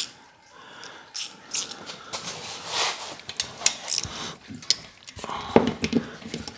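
Irregular small metal clicks and scrapes of a hand tool loosening the 10 mm bolts on an ATV engine's oil filter cover.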